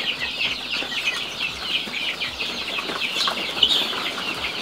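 A large flock of young laying-hen pullets peeping: many high, short, downward-sliding chirps overlapping without pause.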